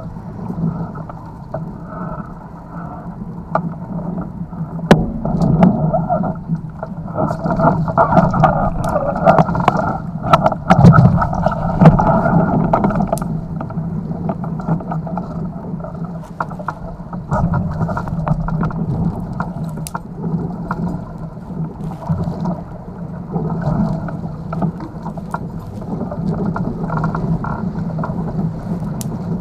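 Water rushing and splashing against the hulls of a Nacra 500 beach catamaran under sail, with wind on the microphone and many sharp knocks and splashes. Loudest for a few seconds near the middle.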